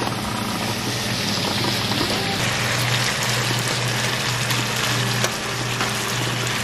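Boneless chicken thigh pieces sizzling steadily in a frying pan, in the fat rendering out of the meat, over a steady low hum.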